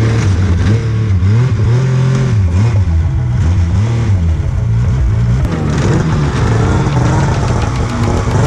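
An engine revving, its pitch rising and falling repeatedly.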